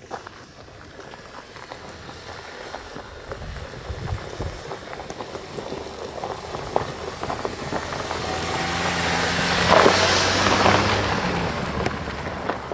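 A 2020 Haval H9 SUV drives up the gravel track and past, its engine humming and its tyres crunching over gravel and brushing through scrub. It grows louder to a peak about ten seconds in, then fades slightly as it moves away.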